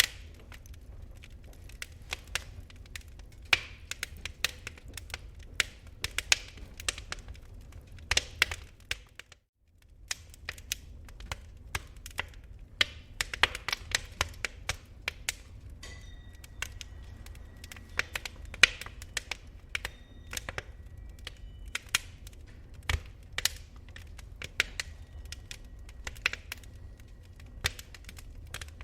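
Wood fire in a fireplace crackling, with irregular sharp pops and snaps over a low steady rumble. The sound cuts out briefly about a third of the way through, then the crackling resumes.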